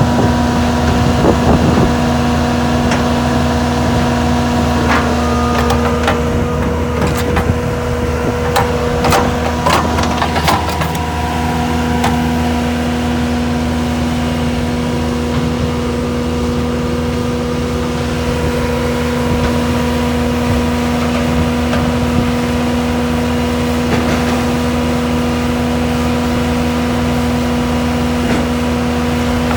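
Bobcat S630 skid-steer loader's diesel engine running steadily at a constant speed, with a slight change in engine note about ten seconds in. Scattered knocks and rattles in the first ten seconds or so.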